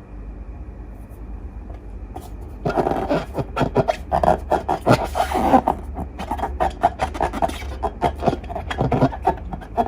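Slime being worked and squished: a dense run of short sticky crackles and pops starting about three seconds in, after a faint low hum.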